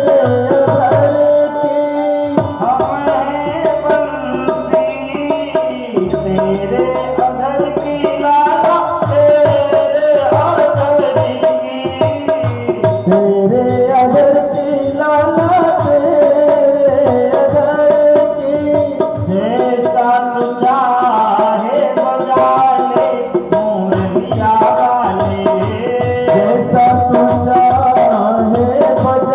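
Devotional Krishna bhajan music: a melodic line that bends and holds notes, over a steady tabla rhythm, with no sung words.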